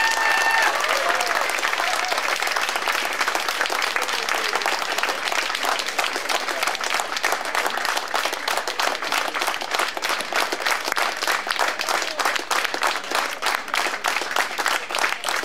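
Audience applauding. Partway through, the clapping settles into a steady rhythmic beat in unison. A last held musical note ends under the applause at the very start.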